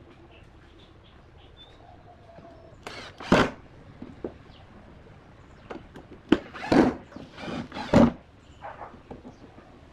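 Ozito cordless impact driver driving screws into pine blocks in short bursts: one about three seconds in, then about four more in quick succession a few seconds later.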